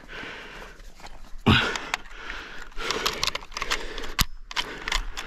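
Handling noise: a run of small clicks and rattles with rustling, a louder knock about a second and a half in, and heavy breathing.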